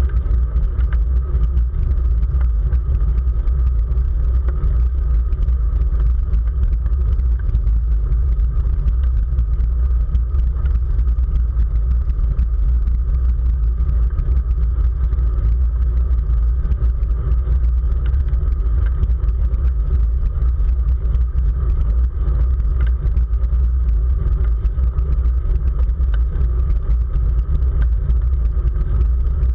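Steady, heavy wind rumble on the microphone of a camera mounted on a racing bicycle moving at race speed.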